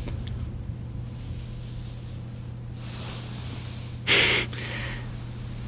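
A man's short, sharp breath out through the nose, about four seconds in, over a steady background hiss of rain sounds and a low hum.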